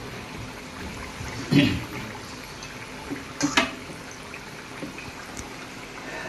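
Batter-coated potato slices deep-frying in hot oil in a steel wok, a steady sizzle. Two brief louder noises stand out about one and a half and three and a half seconds in.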